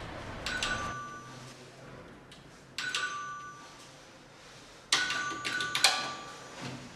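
A doorbell chime rung repeatedly: a ringing two-tone ding about half a second in, another about three seconds in, then a quicker run of rings around five to six seconds in, each fading within a second.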